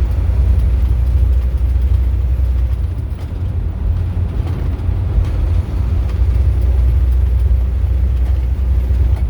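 Car driving at highway speed: a steady low rumble of road and engine noise.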